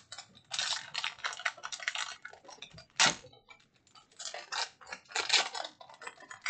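Foil wrapper of a Magic: The Gathering Strixhaven booster pack crinkling as it is handled and torn open, with one sharp rip about three seconds in, followed by more crinkling and rustling as the pack is opened out.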